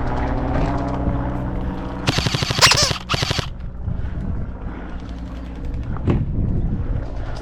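Airsoft rifle firing one rapid full-auto burst of about a second and a half, a few seconds in, followed later by a single sharp crack.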